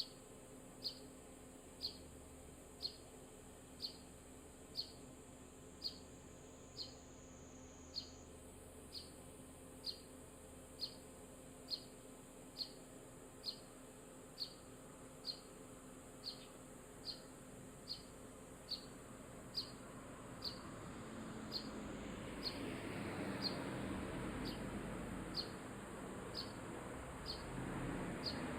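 A sparrow giving a short, high chirp over and over, very evenly about once a second. In the last third a broad rushing noise swells in under it.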